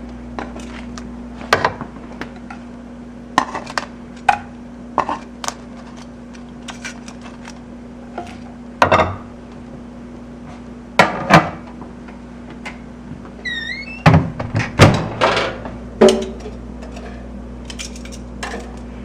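Kitchen plates, dishes and utensils clinking and thunking in a string of separate knocks as breakfast is plated, heaviest a little past the middle. A steady low hum runs under them, and a brief high chirping comes a little after the middle.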